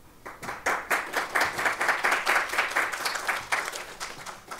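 Audience applauding at the end of a talk. Many hand claps start about a quarter second in and die away near the end.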